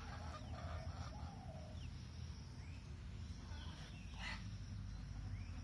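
Outdoor rural ambience: birds calling with short chirps and some clucking-like calls, over a steady low rumble. A brief, louder sound comes about three quarters of the way through.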